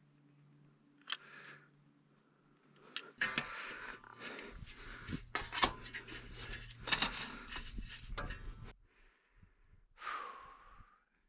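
Stainless-steel chimney rain cap being worked down onto the top of the chimney pipe by hand: a dense run of metal clinks and scraping lasting several seconds, after a few sharp clicks.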